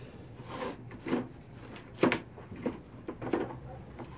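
Irregular handling noises: about five short clatters and rustles from tools being picked up and set down on a workbench.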